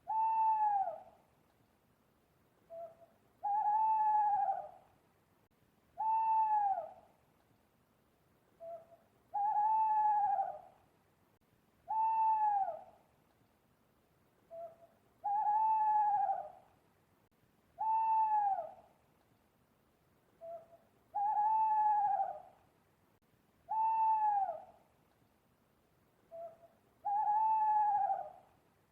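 An owl hooting in a steady repeating series. Each phrase is a short note followed by two longer hoots that drop in pitch at their ends, and the phrase comes round about every six seconds.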